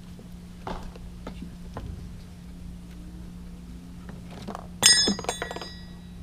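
Light clicks of small headlight parts being handled, then about five seconds in a sharp, ringing clink of a hard part striking a hard surface, followed by a few lighter rattling clicks.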